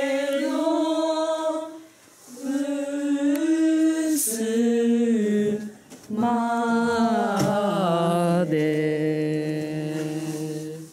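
A small group of young women singing a slow song in unison, unaccompanied, on long held notes in three phrases with short breaks between them.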